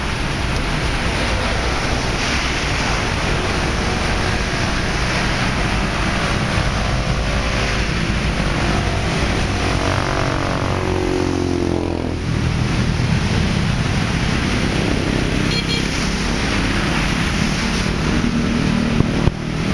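Steady rushing noise of traffic on a wet road. About eight to twelve seconds in, a vehicle passes, its engine note falling in pitch as it goes by.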